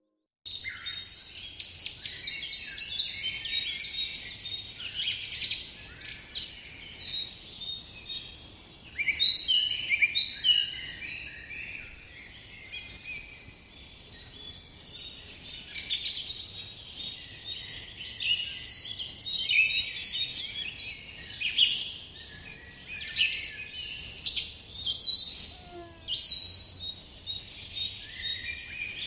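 A dense chorus of many birds chirping and trilling, with calls overlapping thickly and swelling and fading in loudness. It begins about half a second in.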